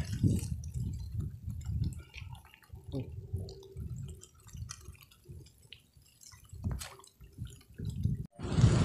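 Wind buffeting the microphone in irregular low gusts, with scattered small ticks of light rain. Near the end a steady rushing hiss of rain and wind cuts in abruptly.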